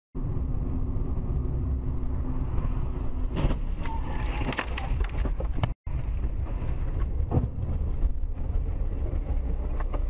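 A car driving, heard from inside the cabin through a dashcam microphone: a steady low rumble of engine and road noise, with a few clicks and knocks between about three and six seconds in and one more a little later. The sound cuts out for an instant just before six seconds.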